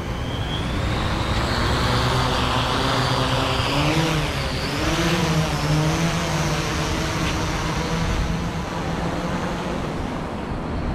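Multirotor fishing drone's motors and propellers whining steadily. The pitch rises early on and wavers around the middle as the motors change speed, over a low rumble of wind and surf.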